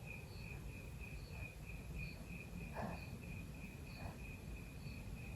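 Faint, steady chirping of an insect such as a cricket, a high trill pulsing about four times a second.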